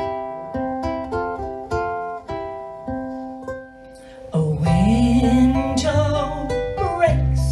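Ukulele and guitar picking a melodic instrumental passage, note by note. About four seconds in, the sound jumps louder to a woman singing over fuller accompaniment.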